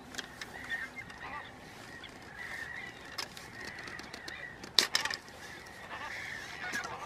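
A flock of Chilean flamingos calling continuously with goose-like honking chatter during their courtship group display. A few sharp clicks cut through, the loudest about five seconds in.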